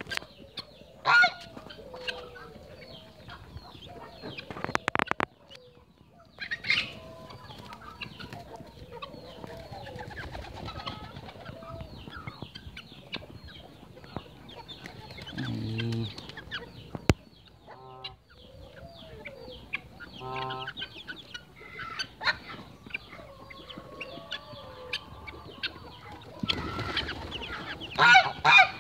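Young Belgian d'Uccle bantam chicks peeping and calling close by, in scattered short high calls with louder bursts about a second in and near the end. A few lower, deeper bird calls sound in the middle.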